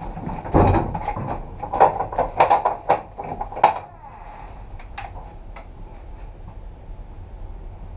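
A cluster of sharp metallic clanks and knocks for about four seconds, then a steady low rumble of a train running on the line.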